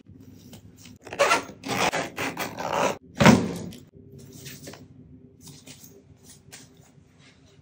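Handling noise of a padded fabric laptop sleeve and a hard-shell carry-on suitcase: rustling and scraping as the sleeve is pulled out of the suitcase's front pocket, with one heavier thump about three seconds in, then lighter taps and clicks as the sleeve is set against the case.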